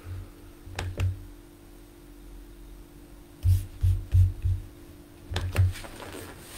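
Handling noise: dull bumps and knocks with a few sharp clicks as the recording device is touched and adjusted, in three clusters. A faint steady hum runs underneath.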